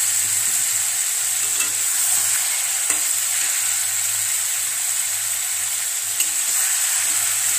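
Raw mutton pieces frying in hot oil with onions and spices in a metal kadai: a steady sizzle, with a metal spatula stirring and scraping the pan and a couple of sharp clicks against it.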